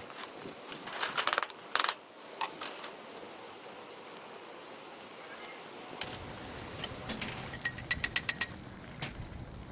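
Kitchen clatter of small metal clinks and knocks, then a quick run of light ringing taps near the end.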